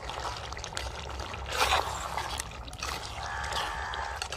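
A slotted metal spoon stirring and scraping through meat, cream and broth in a clay cooking pot, with wet sloshing, loudest about a second and a half in. A held call or tone sounds in the background from about three seconds in.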